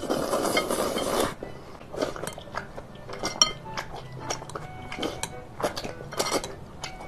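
A long, wet slurp of thick spicy rice noodles being sucked up from the bowl, then chewing and small mouth sounds with chopsticks clicking against a glass bowl, and another short slurp at about six seconds.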